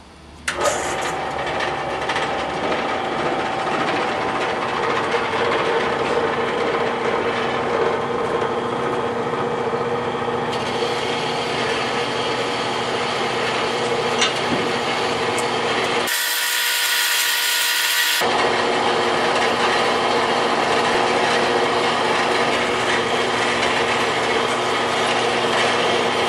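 Harbor Freight horizontal metal-cutting band saw switched on about half a second in, then running steadily as its blade cuts through a 1-1/8 inch hot-rolled steel bar. About two-thirds through, a two-second burst of hiss briefly replaces the saw.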